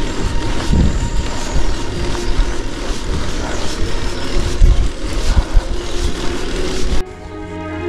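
Wind buffeting the microphone and tyre rumble from a gravel bike being ridden along a road: a loud, gusty, deep rushing noise. It cuts off abruptly about seven seconds in and string music starts.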